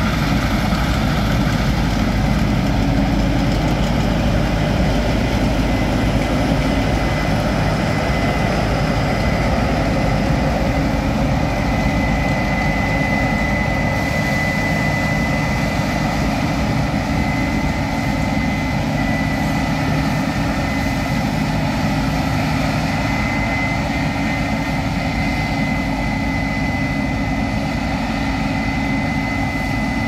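Case IH 7230 combine harvester running under load while cutting and threshing wheat: a steady engine and machinery drone with a thin, steady high whine on top.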